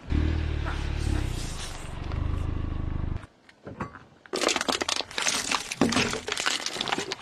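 A car tyre rolls over rubber squeeze toys, which let out one long low squeaky tone for about three seconds before it cuts off. After a short pause, the tyre crushes aluminium drink cans filled with water beads, with a rapid run of crunching and crackling.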